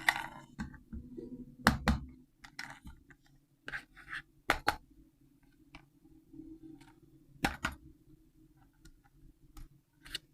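Irregular clicks, taps and scratches of a plastic toy and its packaging being handled, a few sharp knocks among them, over a faint steady hum.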